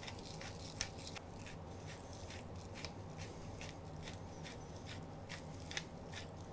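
Hand-twisted pepper grinder cracking black peppercorns: a faint, irregular run of small crunching clicks.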